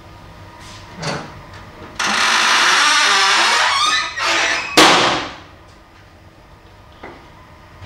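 A tall panel dragged aside, scraping with a wavering squeal for about two seconds, then a shorter scrape and a loud bang as it comes to rest.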